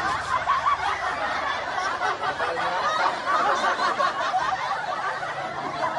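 Sustained laughter, steady and dense throughout.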